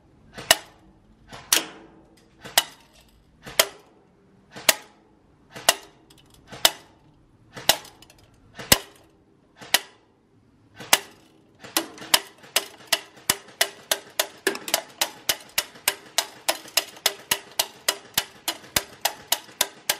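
Lancer Tactical M4 CQBR airsoft electric gun firing BBs into a paper target, each shot a sharp crack. About one shot a second at first, then from about twelve seconds in a faster run of about five a second.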